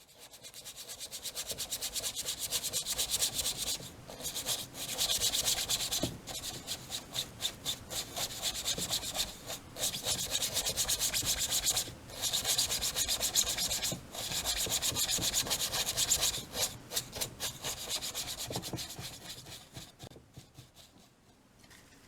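Fast back-and-forth rubbing strokes, in runs of a few seconds broken by brief pauses, tapering off near the end.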